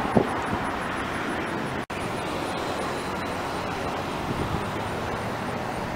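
Steady roadside traffic noise from passing vehicles, with a brief break about two seconds in.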